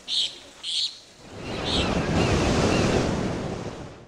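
End-card sound effects: two short bird-like chirps, then a broad rushing swell of noise that builds about a second in and fades near the end, with faint chirps over it.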